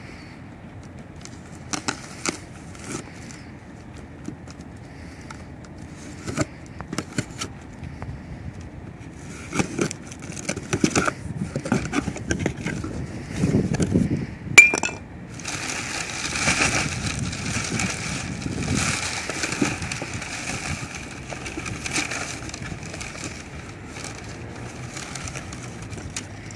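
A cardboard shipping box being cut open with a knife and unpacked: scattered cuts, taps and rustles of tape and cardboard, a sharp click about halfway, then a long stretch of plastic wrapping crinkling as the contents are lifted out.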